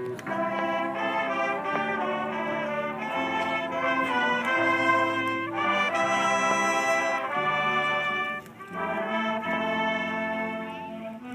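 High school marching band's brass section playing sustained chords in a field show, trumpets and trombones over low brass, the chords changing every half second or so with a brief drop about eight seconds in.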